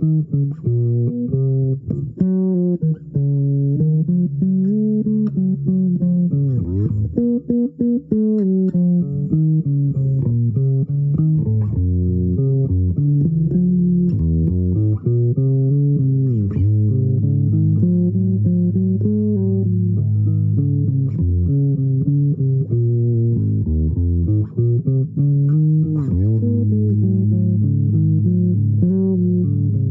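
A plucked string instrument playing a slow, low melody of single notes, some of them sliding in pitch.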